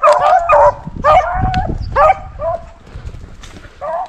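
Rabbit hounds baying and yelping in about six short calls, the loudest in the first two seconds, fainter and more spaced out after.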